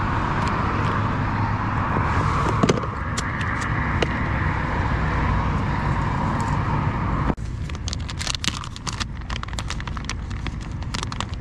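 Steady road traffic noise from cars crossing the bridge. About seven seconds in it cuts off suddenly to a quieter stretch of rapid, scattered small clicks and ticks.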